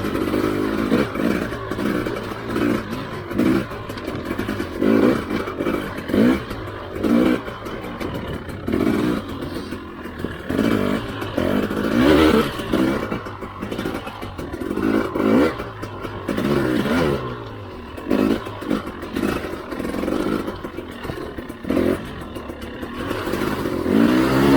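Husqvarna TE300i two-stroke enduro motorcycle's engine revving up and dropping back in short bursts of throttle, about once a second, as it is ridden over rough trail.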